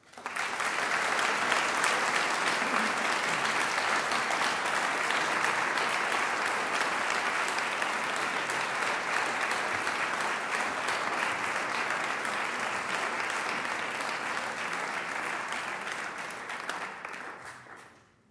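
Audience applauding, a dense patter of many hands clapping that starts suddenly, holds steady, and dies away over the last couple of seconds.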